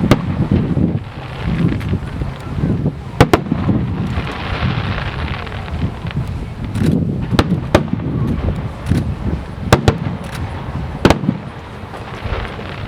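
Aerial fireworks bursting overhead: sharp bangs about three seconds in and again near ten and eleven seconds, with a stretch of crackling between them and a constant low rumble of the display.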